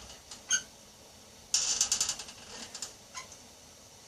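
Ratcheting clicks of a hand-squeezed bait gun extruding boilie paste: a sharp tick about half a second in, then a quick run of clicks about one and a half seconds in.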